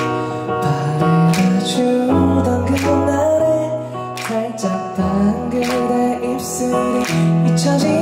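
Live band playing a slow pop ballad: electric guitar chords over sustained low bass notes that change every second or so, with a male singer's voice at the microphone.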